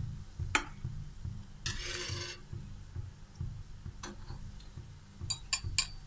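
A spoon working in a pan of warm sugar syrup as fried gulab jamuns are added and stirred: one short scraping stir about two seconds in, and a few light metal clinks, bunched near the end.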